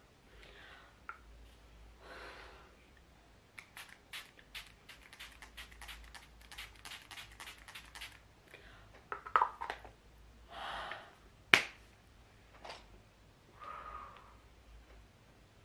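Pump-action makeup setting spray spritzing in many quick short bursts, several a second, for about five seconds, then a few louder scattered spritzes and a sharp click.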